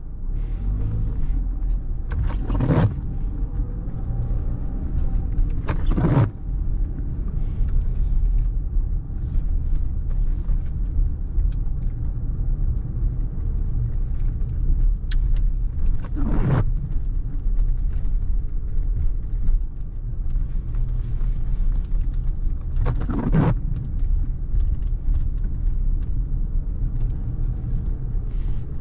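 Car driving slowly on a wet street, heard from inside the cabin: a steady low rumble of engine and tyres, broken by four brief swishes.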